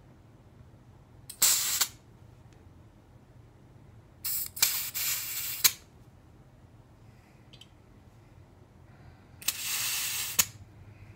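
Airsoft gas hissing into the fill valve of a VFC gas blowback rifle magazine as a can's nozzle is pressed on, in three bursts: a short one, a longer broken one, then a steady one about a second long.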